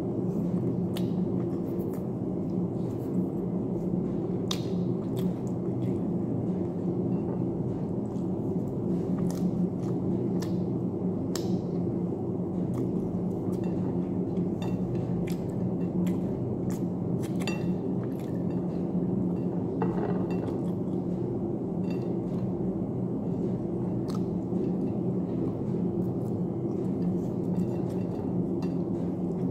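Someone eating fried chicken and rice by hand: scattered small clicks and smacks from chewing and from fingers picking at the food, over a steady low hum.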